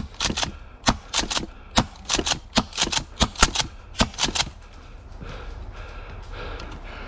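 Airsoft guns firing a rapid, irregular string of sharp shots, about fifteen in four and a half seconds, which then stops.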